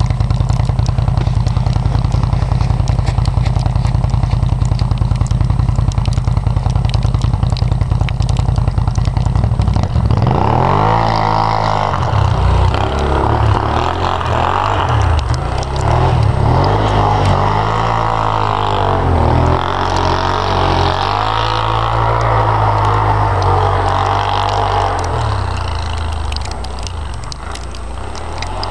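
Renegade 800's engine idling steadily for about ten seconds, then revving up as the machine pulls away, its pitch rising and falling with the throttle while riding through snow.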